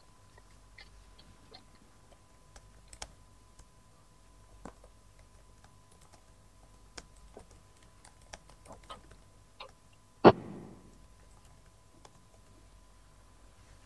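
Footsteps on a concrete path and small handling clicks, scattered and irregular. About ten seconds in comes one loud thump with a short dying tail.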